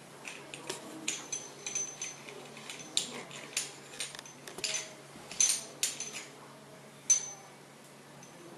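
Irregular metallic clicks and clinks as the chrome body and brass cartridge of a HARMA ST024-WO thermostatic mixer are handled by hand, about a dozen, several with a short high ring; the loudest come a little past halfway and about seven seconds in.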